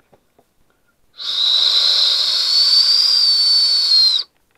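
Coris Fue Ramune whistle candy, a hollow ring-shaped candy, blown as a whistle: one high, breathy whistle held for about three seconds, starting about a second in, its pitch rising slightly and dipping just before it cuts off.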